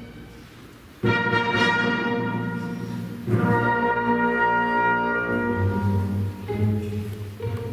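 Orchestra playing classical music with brass. After a quiet opening, a loud sustained chord comes in about a second in, and another full chord enters about three seconds in and is held.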